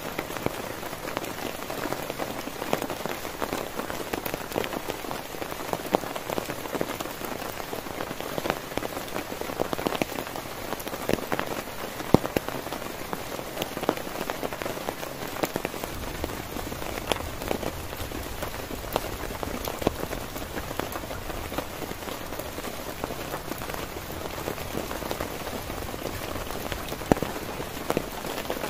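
Heavy rain falling on a tent: a dense, steady hiss full of sharp individual drop hits. A low rumble sets in about halfway through.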